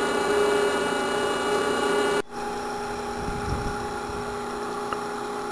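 Motor-driven cathead (capstan winch) running, a steady hum and whine from its drive and gearbox as the rope cylinder turns. About two seconds in, the sound breaks off and resumes a little quieter at a different pitch.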